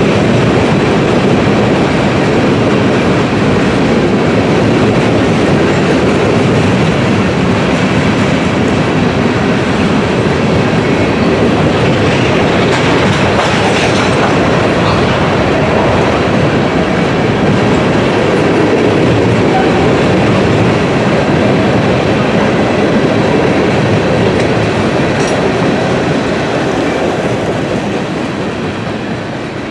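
Norfolk Southern mixed freight train's cars rolling across a short steel railroad bridge: a steady rumble with clickety-clack of wheels over the rail joints. The sound fades over the last few seconds as the end of the train passes.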